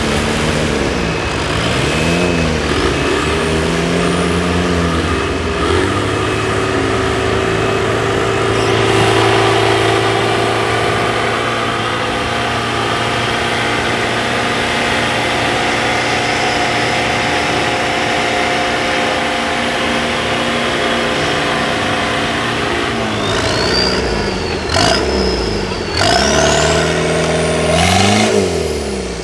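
Off-road 4x4 engines revving hard while crawling through deep mud. The revs rise and fall several times at the start and again near the end, and are held fairly steady in between.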